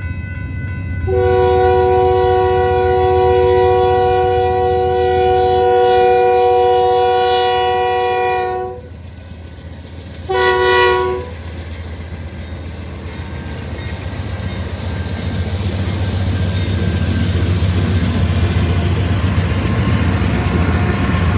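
Union Pacific freight locomotive's multi-chime air horn sounding one long blast of about seven seconds, then a short blast a second and a half later. Then the low rumble of the diesel locomotives and freight train grows steadily louder as the train departs.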